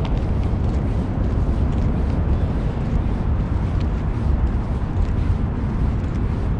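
Wind buffeting the microphone: a loud, unbroken low rumble that flutters up and down in level.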